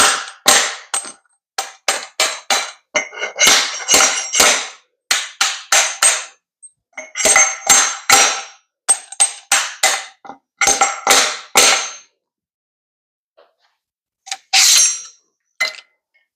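Repeated hammer blows on ringing metal, about two a second at an uneven rhythm, driving a headset bearing down onto a bicycle fork's steerer tube. The blows stop for a couple of seconds after about twelve seconds, then a few more strikes follow.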